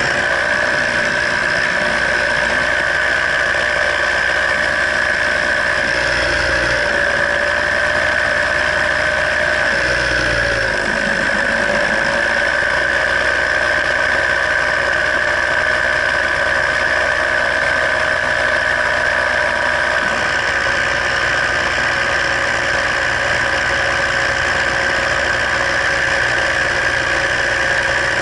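A paramotor's engine and propeller run steadily in flight, a loud drone with a high whine. About ten seconds in the engine note dips briefly and comes back up. Two short low rumbles of wind come at about six and ten seconds in.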